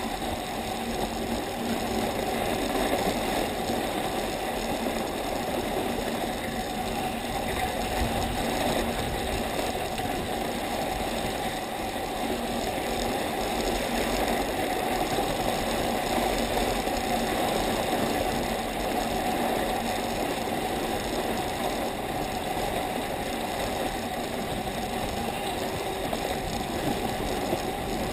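Steady scraping and rattling of a low sled gliding over packed snow as it is towed up a T-bar lift.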